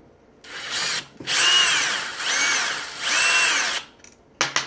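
Cordless power drill/driver running in four short bursts, its motor pitch rising and falling with each trigger pull, as it backs out a badly seated screw.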